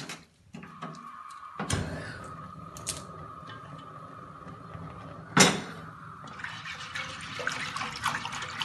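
A gas hob burner is clicked and lit, then hisses steadily; a pot knocks down onto the burner grate about five seconds in. A wire whisk then sloshes and scrapes through the milk and starch mixture in the pot.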